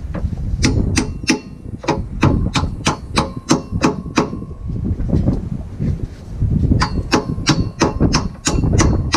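A hammer rapidly striking steel at a car's rear suspension, about three ringing blows a second. About a dozen blows, a pause of roughly two seconds, then about ten more, over a low wind rumble on the microphone.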